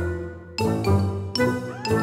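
Background music for a children's cartoon: a light tune of short struck notes, a few a second, over a bass line, with one note sliding upward near the end.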